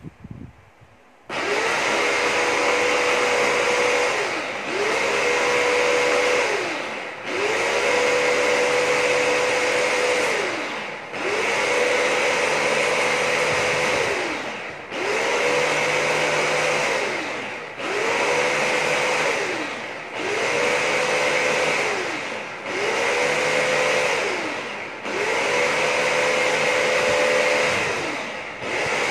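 Electric mini food chopper running in repeated pulses as its push-down motor top is pressed and released, chopping green plant matter in a stainless steel bowl. The motor starts about a second in, then spins up and winds down about ten times, each run lasting two to four seconds.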